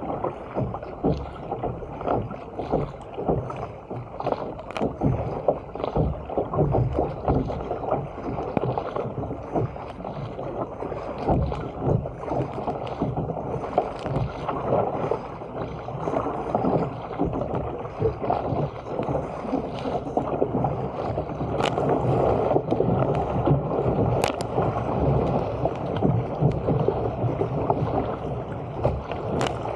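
A fishing surfski being paddled hard at sea: rhythmic paddle splashes over water rushing along the hull, the rush growing fuller and a little louder as the ski picks up speed on boat waves. A few sharp clicks near the end.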